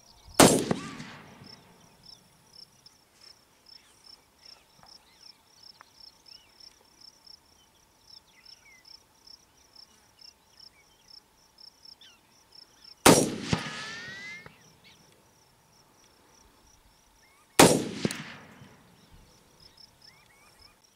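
Three well-spaced shots from Remington XR-100 rifles in .22-250, each a sharp crack with a short rolling echo. A rising whine follows the second shot. Between the shots, insects chirp faintly in an even rhythm.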